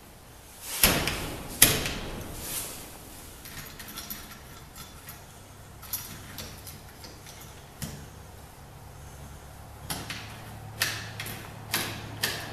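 Spring latch of a door-knob entry lock being worked by hand, its bolt clicking and snapping in and out. Two loud clacks come about a second in, then lighter scattered clicks, and a quick series of clicks near the end.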